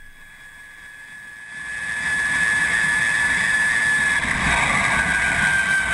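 Electric motor of a Yamaha R5 converted to an electric motorcycle, whining as it runs. The sound fades in about a second and a half in, becomes a steady high whine over a rumble, and its pitch slowly falls near the end.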